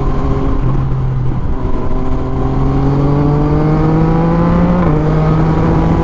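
Yamaha MT-09's 847 cc inline-three engine breathing through an Akrapovic carbon full exhaust system, pulling under steady throttle with its pitch rising gradually for about five seconds. The pitch then drops suddenly, like an upshift, and the engine runs on steadily.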